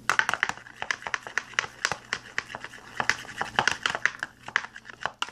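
Plastic spoon stirring a runny glue and shaving-cream slime mixture in a small plastic tub: a fast, irregular run of scraping clicks against the tub.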